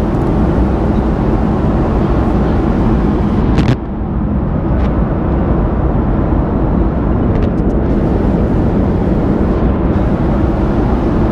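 Steady engine and airflow noise inside an airliner cabin, strongest in the low end, with one sharp knock about four seconds in.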